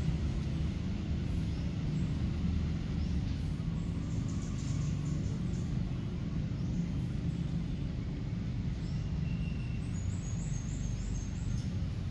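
Steady low rumble of outdoor background noise, with a quick run of faint high chirps near the end.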